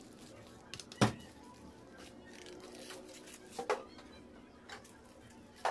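A few sharp knocks and clicks from a knife and a metal baking tray as baked macaroons are cut and lifted out of the tray, with paper baking cups being handled. The loudest knock comes about a second in, and lighter clicks follow near the middle and end.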